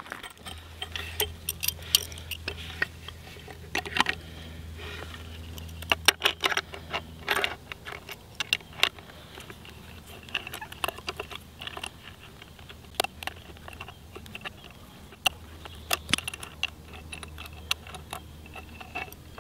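Irregular small metal clicks and clinks of pliers working a nut and bolt loose from a wooden tool handle.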